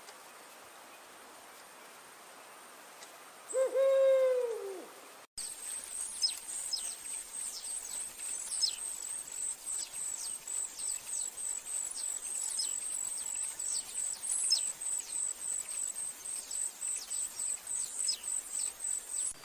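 An owl gives one loud hoot about three and a half seconds in, rising slightly and then falling away over about a second and a half. After a sudden cut, a high, steady pulsing whine of about three pulses a second runs on, with many quick falling chirps over it.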